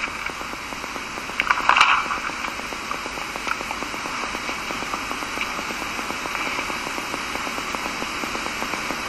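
Steady background hiss and crackle of a lecture recording, with a short louder burst about two seconds in.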